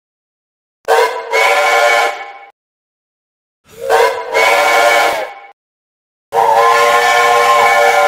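Steam locomotive whistle blown three times, each blast several steady tones sounding together over a hiss of steam. The third blast is the longest and sags in pitch as it cuts off.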